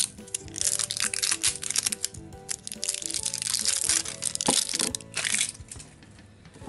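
Crinkling and crackling of plastic packaging being handled and opened, over light background music with a stepping melody.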